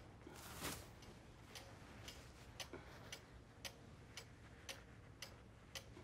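Pendulum wall clock ticking steadily in a quiet room, about two ticks a second. A brief soft rustle comes about half a second in.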